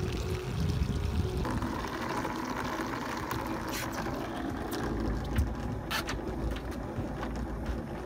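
Electric capstan pot hauler running, winding a prawn-trap line in over its drum. About a second and a half in, a steady hiss of line running sets in, with a few sharp clicks, over a low rumble of wind and boat.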